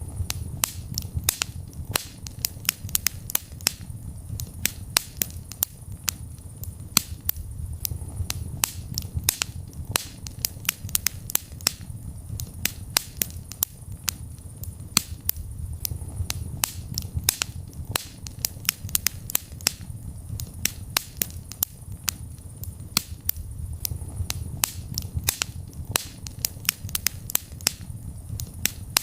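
Wood fire in a fireplace crackling, with irregular sharp pops and snaps several times a second over a low, steady rumble of the flames.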